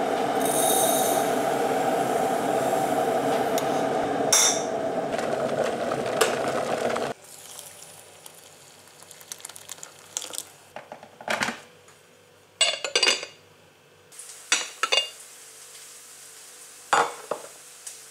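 Dry couscous poured from a glass clip-top jar into a glass bowl: a steady hiss of pouring grain, with a clink about four seconds in, that stops abruptly at about seven seconds. After that, quieter scattered clinks and knocks of glass and kitchenware.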